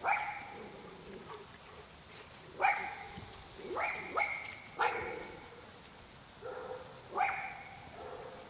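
A young Labrador retriever barking: a string of short, sharp barks with irregular pauses between them.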